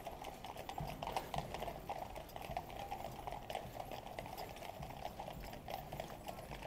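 Faint, irregular clip-clop of cavalry horses' hooves on the road, many small strikes overlapping, over steady background noise.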